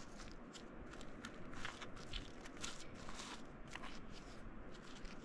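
Digging by hand through loose rock and dirt in a quartz crystal pocket: irregular scraping with small clicks of stone on stone.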